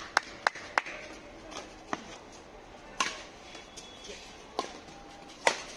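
Badminton rackets hitting a shuttlecock in a rally: sharp, single cracks, a quick run of three at the start and then one about every second.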